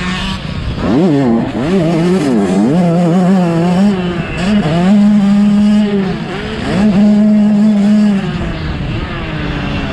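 Motocross race bikes on the track, several at once. The engines rev up and fall back over and over as the riders shift and work the throttle.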